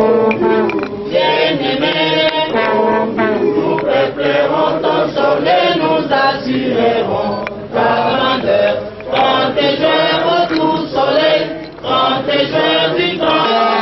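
A group of people singing together in chorus, a sustained song without pause.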